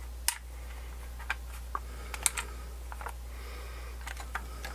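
Scattered small clicks and taps of plastic radio parts being handled and fitted, about seven in all, the sharpest about a third of a second in, over a steady low hum.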